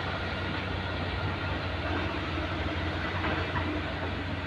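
Diesel engine of a KATO truck crane running steadily as the crane drives slowly past, a constant low hum under a broad rumble.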